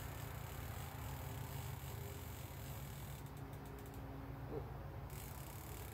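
Fishing reel being wound in, its gears giving a low, steady mechanical rattle, with a few light clicks about three seconds in.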